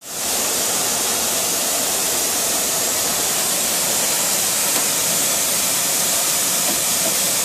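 Steady, loud hiss of gas rushing through a service valve on a four-cylinder semi-hermetic compressor as the valve stem is turned with a wrench.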